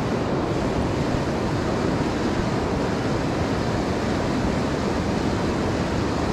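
Fast-flowing river current rushing steadily over a rocky bed.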